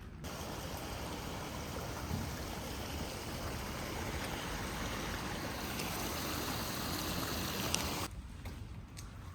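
Steady rushing of running water, an even hiss that starts abruptly and cuts off sharply about eight seconds in.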